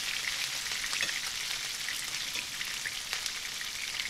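Rohu (Indian carp) steaks shallow frying in hot oil in a frying pan: a steady sizzle with scattered pops and crackles.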